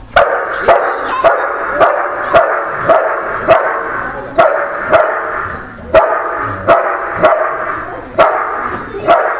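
German Shepherd barking in a fast, even series, about two barks a second, starting suddenly and keeping on without a break.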